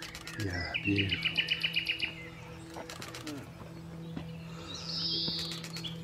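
Common nightingale singing: a rapid run of repeated notes, about eight a second, then a few seconds later a high note sliding downward.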